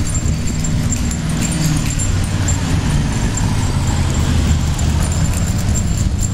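Two-dog sulky rolling along concrete pavement: a steady low rumble from the cart's tyres and frame, with light metallic jingling and clinking throughout.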